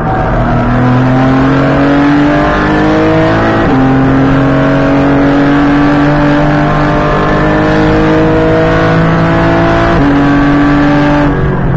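Porsche GT4 Clubsport MR's naturally aspirated 3.8-litre flat-six heard from inside the cabin under full throttle, its note climbing through the revs with two quick upshifts, about four seconds in and again near ten seconds, at the car's detuned 6600 rpm shift point. The engine note falls away just before the end.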